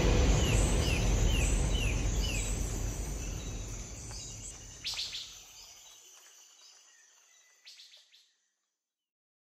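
The end of a background music track fading out, with a run of short, evenly spaced falling chirps like birdsong in it; silent for the last second or so.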